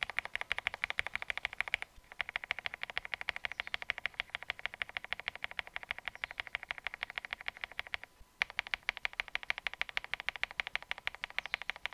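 Mechanical keyboard with budget linear switches (such as the KTT Mint) on a foam- and tape-modded CIY Tester68, typed on fast and steadily. The keystrokes give a dense run of sharp clacks. Brief breaks about 2 s and 8 s in mark changes from one switch's recording to the next.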